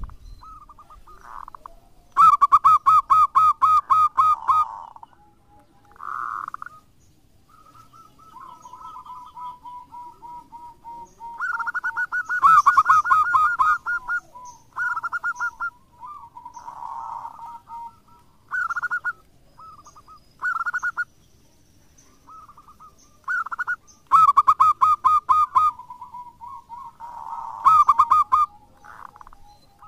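Zebra dove (perkutut) cooing: repeated phrases of rapid staccato coos. The loudest phrases come a few seconds in, around the middle and near the end, with softer, lower coos between.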